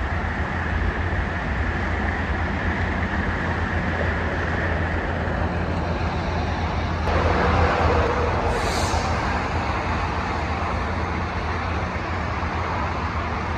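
Coaster commuter train equipment running in a rail yard, with a steady low rumble and a faint high tone early on. About halfway through it gets suddenly louder. A short high hiss follows about a second later.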